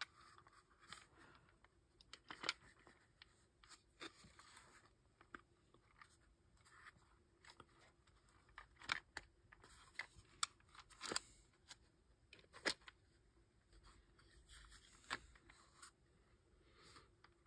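Faint handling noise of plastic launcher parts being fitted together: scattered light clicks, taps and scrapes, a dozen or so, as the two halves of a Byrna TCR receiver are worked together around the safety.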